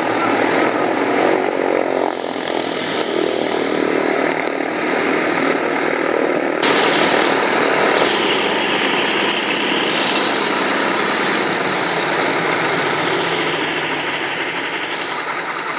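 Douglas DC-3's twin radial piston engines running steadily at low power with the propellers turning. The sound shifts abruptly about seven seconds in.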